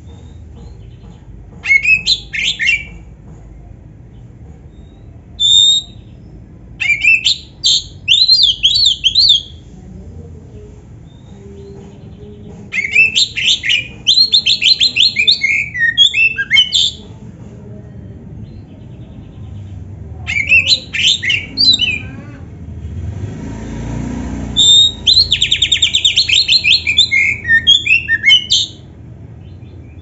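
Oriental magpie-robin singing loud phrases of clear whistles and fast trills, in six bursts separated by pauses of a few seconds. A low rumble swells briefly a little before the last phrase.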